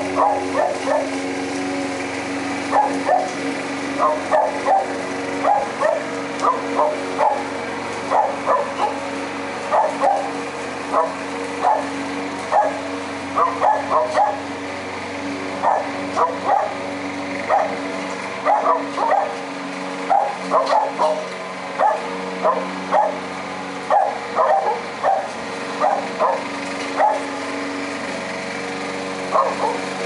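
A dog barking over and over in irregular runs of short barks, over the steady hum of a lawn mower engine running.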